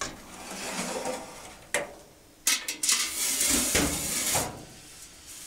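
Metal pots clanking and scraping on the steel top of a wood cookstove: a few sharp clanks, then over a second of scraping rattle.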